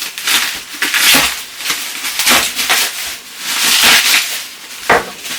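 Plastic bubble wrap being unwrapped by hand, crinkling and rustling in repeated bursts, with one sharp click near the end.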